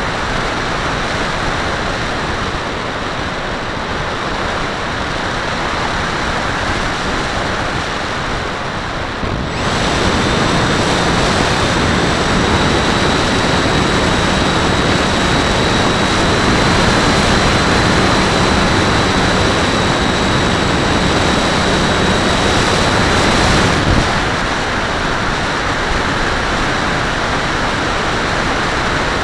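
Wind rushing over the microphone of a wing-mounted camera on a HobbyKing Walrus RC plane in flight, mixed with its electric motor and propeller. About a third of the way in the sound gets louder and a steady high whine with a lower hum appears. It drops back to plain wind rush about five seconds before the end.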